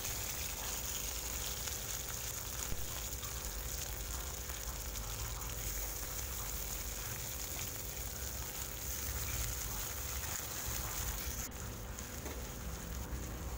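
Chopped green bell peppers frying in hot mustard oil in a kadhai: a steady sizzle.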